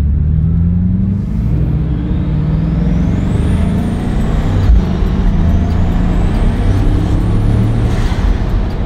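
Bugatti Chiron's quad-turbocharged W16 engine heard from inside the cabin while driving, its note climbing and dropping back several times. A high whistle rises and falls twice above it.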